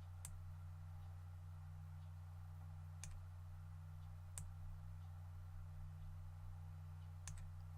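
Four faint, widely spaced clicks at a computer while a part is positioned in 3D software, over a steady low electrical hum.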